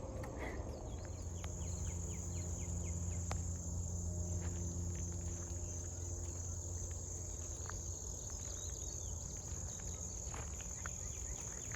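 Late-summer insect chorus: a steady, high-pitched trill of many insects, with a few faint short chirps. A low hum sits underneath, strongest in the first half.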